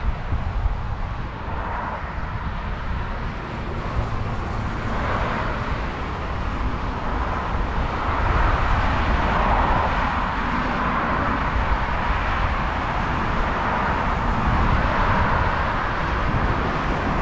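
Road traffic noise: a steady rush of passing vehicles that grows louder about halfway through.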